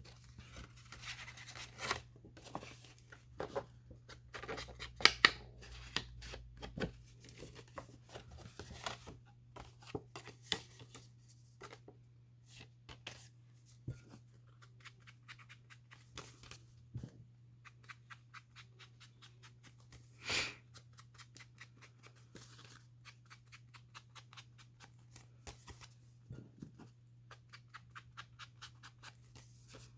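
Paper being handled on a craft table: scattered light rustles, taps and clicks of paper pieces being picked up, placed and pressed down, with one louder rustle about twenty seconds in. A faint low steady hum sits under it.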